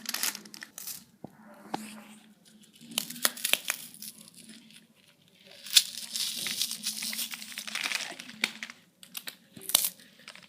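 Crinkly material being crumpled, in irregular bursts of crackles and sharp clicks, with a longer, denser rustling stretch from about six to eight and a half seconds in.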